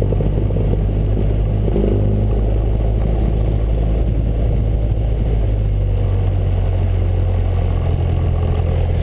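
Light single-engine propeller plane's engine idling with the propeller turning slowly, heard from inside the cockpit as a steady low drone during the rollout after landing.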